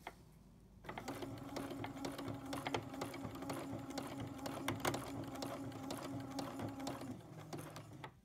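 Sewing machine running steadily for free-motion embroidery, the needle stitching rapidly through hooped fabric. It starts about a second in and slows just before stopping near the end.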